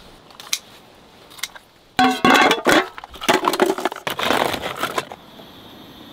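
Raw oysters in their shells clattering and scraping against one another in a metal bowl: a dense rattle of clinks and knocks, with brief ringing from the bowl, from about two seconds in until about five.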